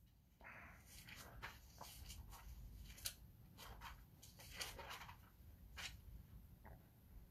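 Faint rustling and scattered small clicks of Bible pages being turned to find a passage, with a couple of slightly louder ticks about three and four and a half seconds in.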